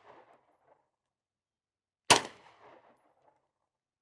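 A single 9 mm pistol shot from a Glock 17 Gen 5 about two seconds in, followed by a short fading echo. The echo of the previous shot is dying away at the start.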